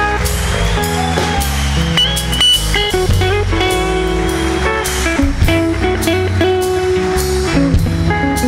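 Rock band playing live: electric guitar lines over bass guitar and drum kit in an instrumental passage with no singing.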